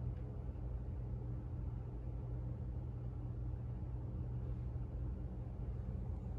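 A steady low rumble with a faint hiss over it, unchanging throughout.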